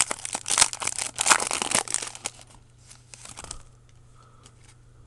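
Foil trading-card pack wrapper crinkling as it is torn open and pulled apart, loud and crackly for about two and a half seconds, then dying down to faint rustles.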